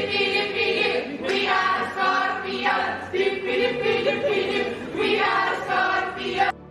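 A small group of voices singing a song together in unison, in short phrases. The singing cuts off suddenly near the end.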